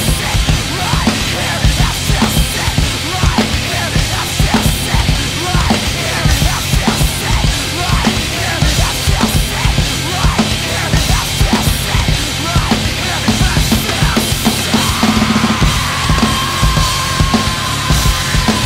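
WFL drum kit played hard along to a recorded rock track with distorted bass and guitars, with driving kick, snare and cymbal hits. About three-quarters of the way through, a long held note comes in and slowly sinks in pitch.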